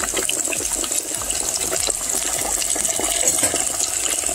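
Floured chicken breast pieces freshly dropped into hot oil in a deep fryer, the oil sizzling and bubbling steadily with many small crackles.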